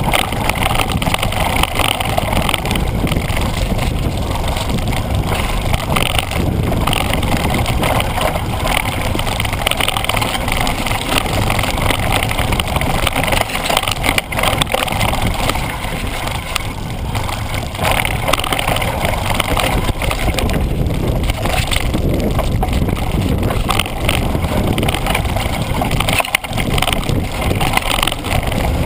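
Mountain bike riding fast down a wet, rocky dirt trail: a steady rush of wind on the action camera's microphone, tyres running over dirt and stones, and the bike rattling with many small knocks over the bumps.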